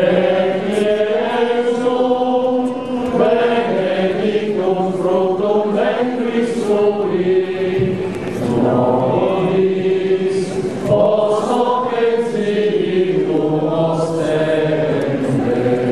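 A group of voices singing a slow religious hymn together, one melody line with long held notes.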